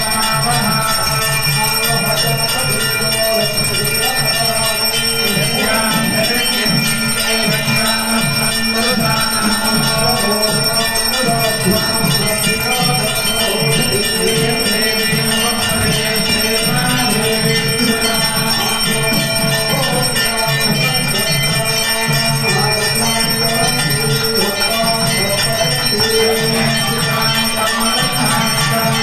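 Temple bells ringing continuously, together with music, during a harati (aarti) lamp offering; the sound is loud and unbroken, with a quick low rhythmic beat underneath.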